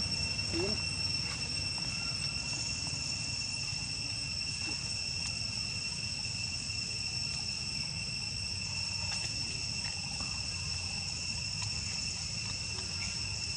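Insects droning steadily in forest trees, one high unbroken tone with a fainter higher one above it, over a low background rumble.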